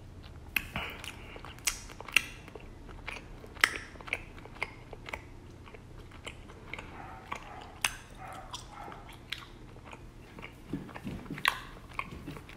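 Close-miked chewing of raw honeycomb: wet, sticky smacks and clicks at irregular intervals as the waxy comb is worked in the mouth.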